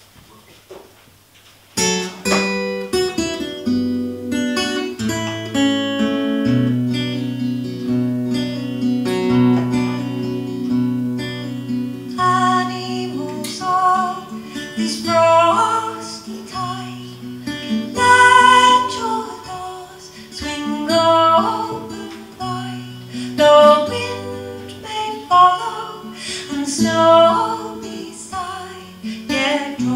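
Acoustic guitar starts playing about two seconds in, and a woman begins singing over it about halfway through.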